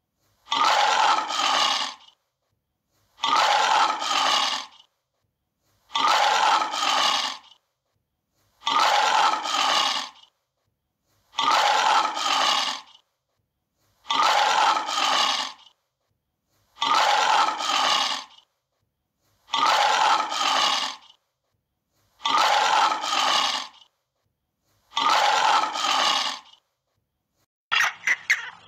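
An animal call, one recording played ten times at an even pace with silence between. Each call is about two seconds long and comes in two parts, a longer one and a short one. A different sound starts just before the end.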